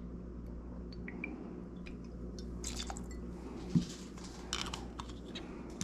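Quiet bar-side handling: overproof rum poured into a steel jigger and tipped into a mixing glass, with light clicks and rustles and a soft thump a little under four seconds in as the jigger is set down on the rubber bar mat, over a low steady hum.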